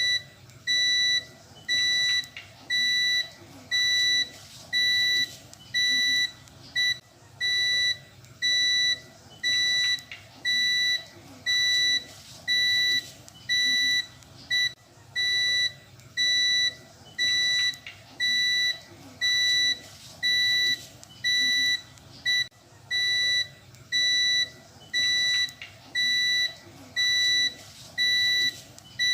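Prepaid electricity meter's low-credit alarm: a high-pitched beep repeating about once a second, each beep lasting most of a second. It signals that the meter's token credit has run out.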